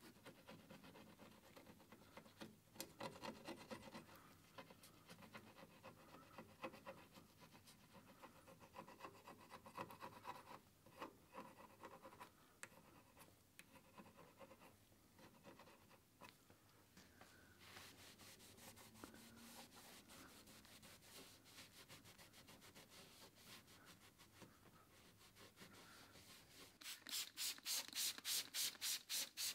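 Soft, irregular scratching and rubbing of gloved fingers and a plastic razor blade scraping at stickers on a car's painted metal radiator support. Near the end comes a quick run of louder, regular hissing spurts as cleaner is sprayed onto the panel.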